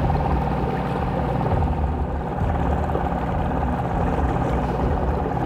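A small boat's motor running steadily under way, a constant whine over a low drone.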